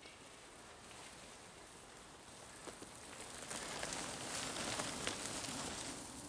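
Mountain bike tyres crackling over dirt and dry leaves, with scattered clicks. The sound grows louder as riders come up the track, passes closest about four to five seconds in, then fades.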